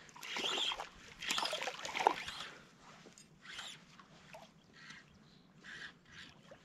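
Irregular small splashes and water sloshing, with the rasp of fly line being stripped in by hand, while a small hooked rainbow trout is played toward a float tube. The bursts are loudest in the first two seconds, then fainter.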